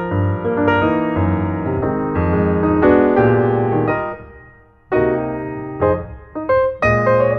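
Background music with a piano playing chords and a melody. It drops away briefly about four and a half seconds in, then picks up again.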